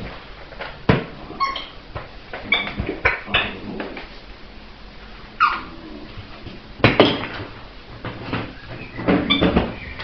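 Border collie puppy playing with a toy: scattered knocks and thumps, with a few short high-pitched squeals, one sliding down in pitch about five and a half seconds in.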